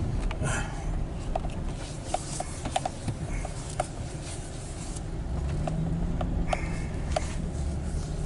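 Pickup truck engine and road rumble heard from inside the cab at low speed, with scattered light clicks and rubbing; about five and a half seconds in a steady engine hum comes in and the sound grows slightly louder.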